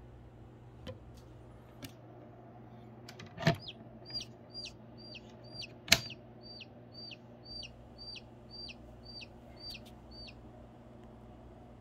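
A baby chick, held in a Goliath birdeater tarantula's grip, gives a run of short, high distress peeps, each falling in pitch at its end, about two a second. A few faint clicks come first, then a sharp knock as the peeps begin and a louder one about halfway through.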